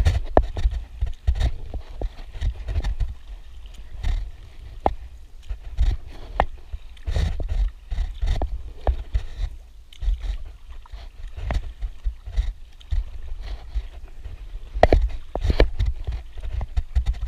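Kayak paddle strokes dipping and splashing in the sea beside an inflatable Decathlon Itiwit 1 kayak, with irregular sharp splashes and knocks over a steady, fluctuating low rumble.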